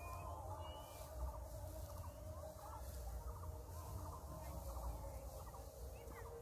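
Birds calling in short, repeated chattering bursts, about two a second, over a steady low hum and a low rumble.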